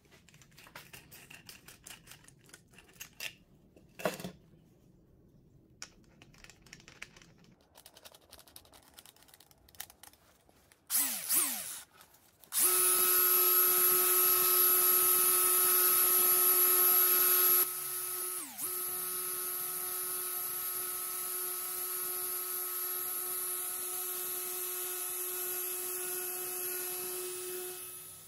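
Electric angle grinder spinning a plywood cylinder while sandpaper is held against it. After some handling clicks and a brief run, the motor settles into a steady whine about twelve seconds in. The whine drops in level about five seconds later and runs on until it stops near the end.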